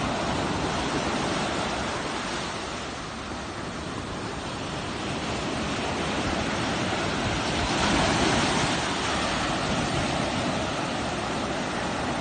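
Big ocean waves breaking on a beach: a continuous wash of surf, with one louder wave swelling in about eight seconds in.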